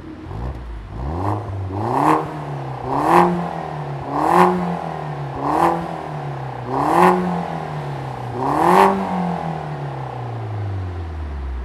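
BMW F20 116i's 1.6-litre turbocharged four-cylinder engine revving through an aftermarket cat-back exhaust with the car standing still. It is blipped about seven times, roughly once a second, each rev rising and falling quickly, and drops back to idle near the end.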